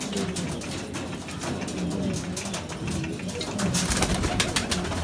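Domestic pigeons cooing, low gliding coos repeated. Just under four seconds in comes a short flurry of sharp flaps from wings beating.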